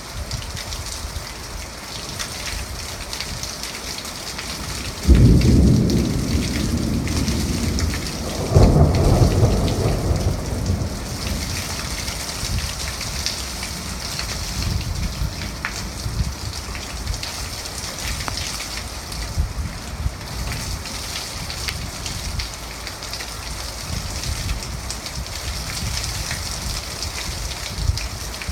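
Thunderstorm: steady rain falling throughout, with two sudden cracks of thunder about five and eight and a half seconds in, each rumbling away over a few seconds.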